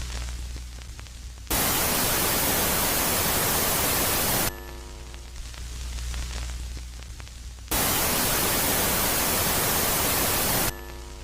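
Synthetic space-sound noise track alternating between a loud phase of static-like hiss and a quieter phase of low hum. Each phase lasts about three seconds and switches abruptly: hiss comes in about a second and a half in, drops back to the hum about halfway, returns, and cuts off near the end.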